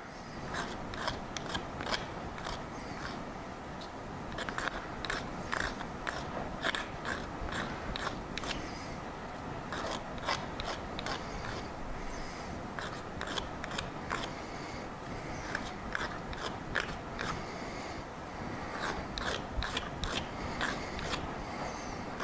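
Dozens of short, irregular clicks and scrapes from a small hand tool worked against the plastic die of a hand-lever watch-crystal press, trimming it down.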